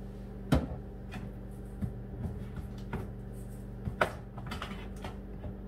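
A few scattered light clicks and taps from a spice container being handled, the sharpest about half a second in and another about four seconds in, over a steady low hum.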